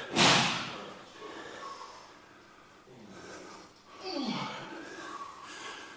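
A man lifting on a chest press breathes out hard, a loud hiss that fades over the first second. Then come two short, strained grunts falling in pitch, about three and four seconds in, as he pushes through reps.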